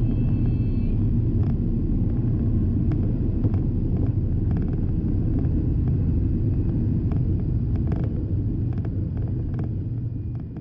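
Steady drone of a Piper PA46 Malibu's piston engine and propeller heard inside the cabin, with faint clicks through it, starting to fade near the end.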